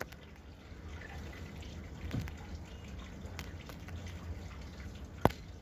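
Faint, steady background with a low hum and water trickling or dripping. One sharp click comes near the end.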